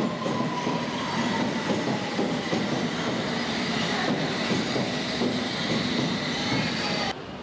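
London Underground S Stock train running slowly along the platform, wheels clicking over rail joints with some wheel squeal, and a whine that slowly falls in pitch as the train slows. The sound cuts off suddenly near the end.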